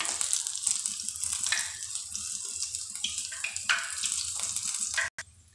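Hot mustard oil sizzling and bubbling in an aluminium kadai as whole onion, garlic cloves and ginger fry in it, a steady hiss with scattered crackles. The oil is being boiled to take the raw edge off mustard oil for cooking. The sound cuts off suddenly about five seconds in.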